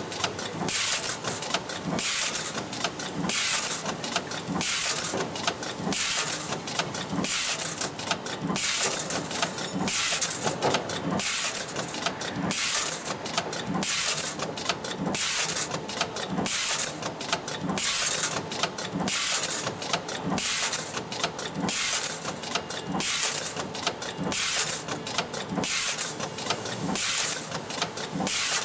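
Automated fork-making press with a pneumatic feeder cycling over and over: short bursts of compressed-air hiss with metallic clicks and clacks, repeating roughly once a second.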